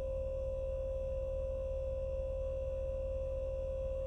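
A steady, unchanging pure tone with fainter higher tones and a low buzz beneath it.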